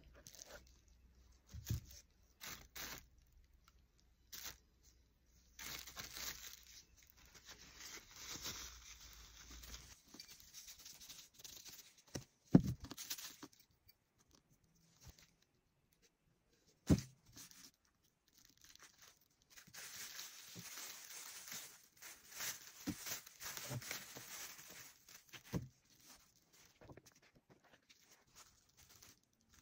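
Thin plastic bags rustling and crinkling as they are handled, in spells of a few seconds, with two sharp knocks near the middle.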